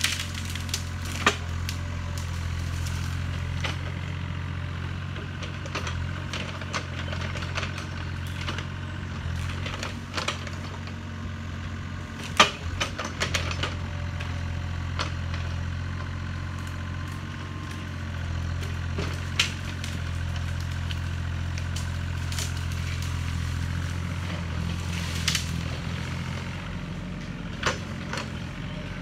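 Yanmar ViO35 mini excavator's diesel engine running steadily as it tears out brush, with scattered sharp cracks and snaps of breaking branches, the loudest about twelve seconds in.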